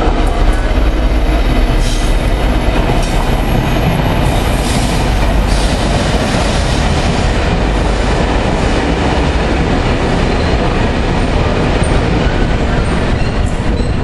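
A loaded ballast train hauled by an EWS Class 66 diesel locomotive rolling steadily past at low speed, the heavy wagons' wheels rumbling and clacking over the rail joints.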